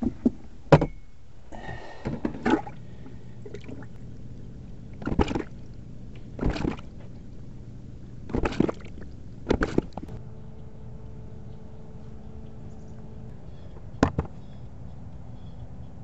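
RV toilet being flushed repeatedly, giving short surges of rushing water several times over. A steady hum starts about ten seconds in.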